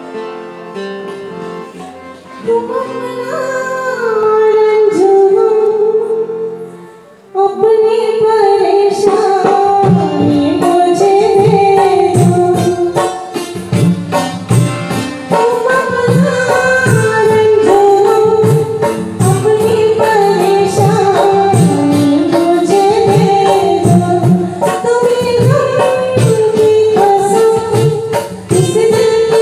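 A woman sings a slow Hindi film song live over instrumental accompaniment. After a short pause about seven seconds in, she carries on with a steady percussion beat underneath.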